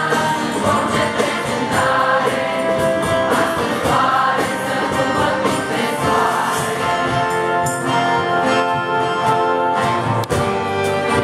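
A crowd singing a song together in chorus, backed by a small acoustic band of guitars, violin and drum keeping a steady beat.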